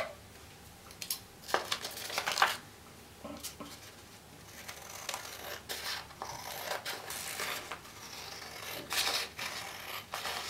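Scissors cutting the leftover strip off a folded A4 paper sheet: a few sharp snips, then a run of short cutting strokes through the paper with rustling.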